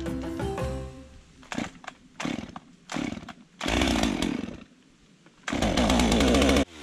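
A chainsaw being started: a few short pull-cord tugs, then the engine fires and runs for about a second before dying. It starts again and revs loudly near the end, then cuts off suddenly.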